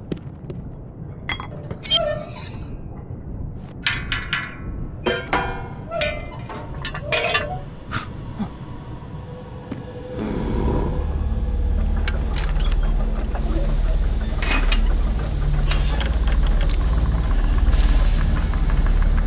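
Film sound design: scattered clicks and short ringing porcelain clinks of teacups. About halfway through, a loud, steady low drone sets in and carries on to the end.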